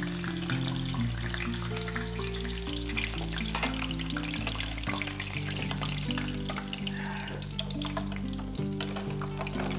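Masa quesadillas frying in hot oil in a pan: a steady crackling sizzle with fine pops. Soft background music with low held notes plays under it.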